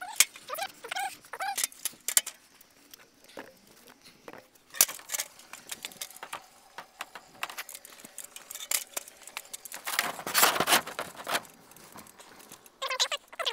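Aluminium stepladder being climbed and a wooden lap fence panel being lifted up out of the slots of its concrete posts: a run of irregular clanks, knocks and rattles, with a longer scraping rush about ten seconds in as the panel slides free.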